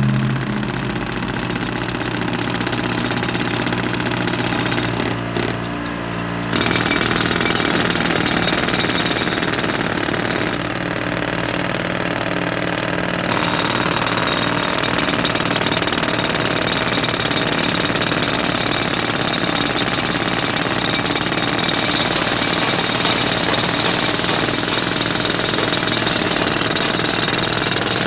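Engines of two-stroke backpack brush cutters running hard while they cut weeds, a dense fast buzz. It gets louder about six seconds in and shifts in tone twice more later on.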